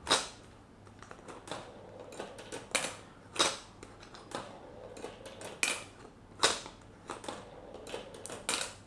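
Glass marbles on a Makeway plastic marble run: a string of sharp plastic clicks and clacks as marbles hit and trip the flip piece and drop into the funnel. The loudest click comes right at the start, with about five more strong ones spread through and many lighter ticks between.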